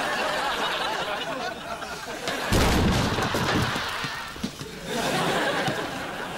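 Sitcom studio audience laughing. About two and a half seconds in, a sudden louder, heavy thump cuts in for about a second while the laughter carries on.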